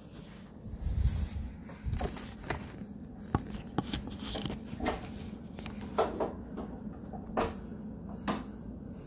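Handling noise of a phone being held and moved about: irregular clicks, knocks and rubbing, with a low bump about a second in.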